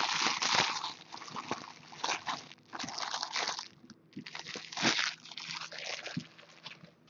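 Empty foil trading-card pack wrappers being crumpled and gathered up by hand: an irregular crinkling crackle in several bursts, with a short lull about four seconds in.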